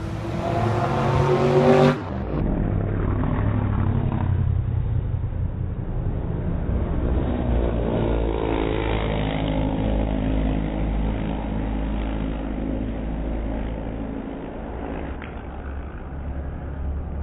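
Race car engines accelerating, their pitch climbing as they pull away. About two seconds in there is an abrupt cut to a duller recording, where another car's engine rises in pitch again over a low rumble.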